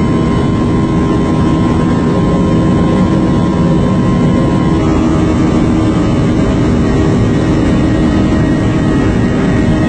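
Aircraft in flight, a loud, steady engine drone with several held tones. A high tone drops out about five seconds in.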